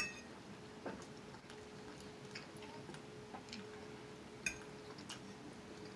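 A metal fork clinking and tapping against a plate while twirling lo mein noodles: a handful of scattered light ticks, the sharpest right at the start and another a little before the end, some with a brief ring. A faint steady hum sits underneath.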